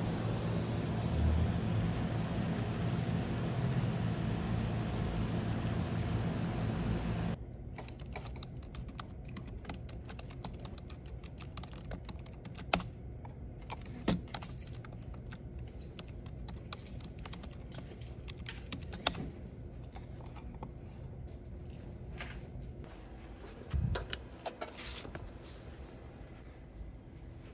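For the first seven seconds, a steady outdoor rumbling noise. After an abrupt cut, typing on a computer keyboard: scattered quick key clicks with a few louder taps, and a brief low thump near the end.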